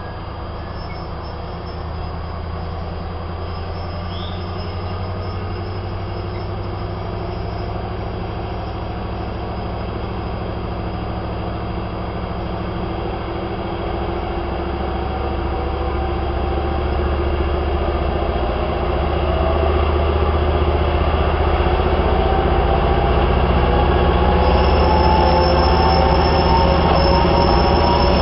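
DB class 294 (ex-V90) diesel-hydraulic shunting locomotive's MTU diesel engine working under load while moving freight cars. Its note climbs slowly in pitch from about halfway on, and it grows steadily louder as the locomotive comes close.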